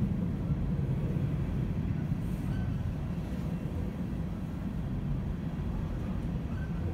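Coal hopper cars rolling slowly along the rails, a steady low rumble of wheels and cars, with a brief faint squeal a couple of times.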